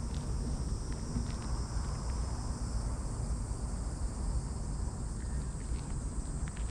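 Outdoor ambience: a steady high insect chirring with a steady low rumble underneath, and a few faint ticks scattered through.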